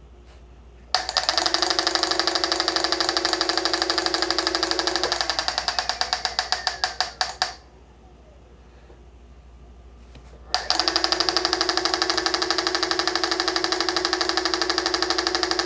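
Onewheel+ hub motor spinning the wheel with a fast, even rattle over a steady hum; it starts about a second in, cuts off after about six seconds, and starts again about three seconds later. The rattle is the fault noise the owner is chasing, one that switches back and forth with a squeak.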